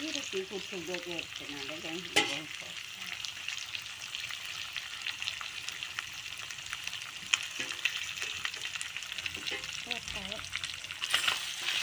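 Duck pieces in spice paste sizzling as they are stir-fried in an aluminium wok, with a steady hiss of frying. A metal spatula scrapes the pan and knocks sharply against it about three times.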